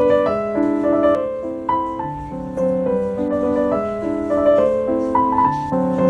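Background piano music: a melody of held, overlapping notes.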